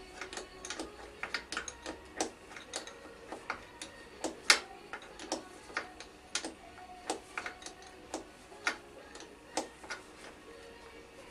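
Irregular sharp metallic clicks and light clinks, about one or two a second, some with a brief ringing tone: hand tools working on a motorcycle's rear axle and chain adjusters.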